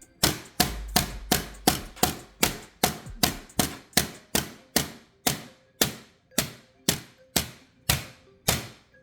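French fry cutter being worked down through a large raw potato: a long series of loud, sharp knocks, about three a second, easing slightly toward the end.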